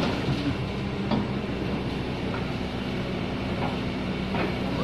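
Kobelco hydraulic excavator's diesel engine running steadily under load as the machine works its bucket against an old oil palm trunk, with a few short sharp knocks over the engine.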